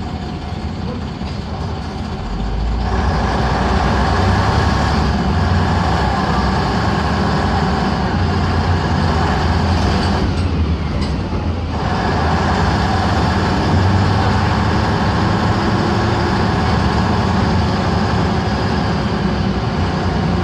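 LiAZ-5256.30 city bus with a YaMZ-236 V6 diesel and Voith automatic gearbox, running under way. The engine and road noise grow louder about two seconds in, drop off briefly about ten seconds in, then run on steadily.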